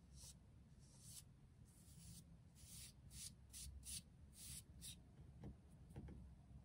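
Foam brush strokes spreading acrylic paint on paper: a run of about ten faint, short swishing strokes in quick succession over a low room hum.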